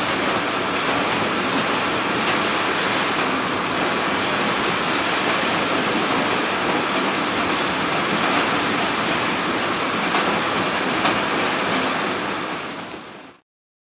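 Garlic heads rattling over the vibrating perforated metal screens of a garlic head sorter: a steady, dense rattle that fades out and stops near the end.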